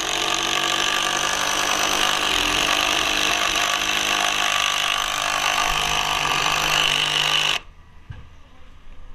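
DeWalt cordless impact driver running continuously for about seven and a half seconds, driving a long screw into framing lumber, then stopping abruptly.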